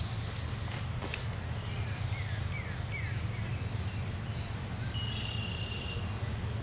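Outdoor ambience: a steady low rumble with a small bird calling, a few short falling chirps two to three seconds in and a buzzy trill around five seconds. A single sharp click about a second in.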